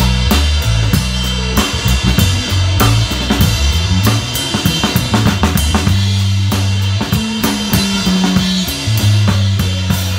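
A live band playing: a drum kit keeps up a steady run of kick and snare hits over a bass guitar line of held notes that change every second or so.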